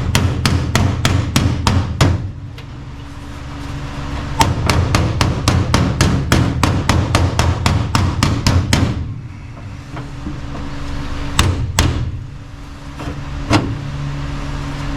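Steel hammer blows on sheet metal, shaping a floor pan patch: two runs of quick, even strikes at about four or five a second, then three separate blows near the end, over a steady low hum.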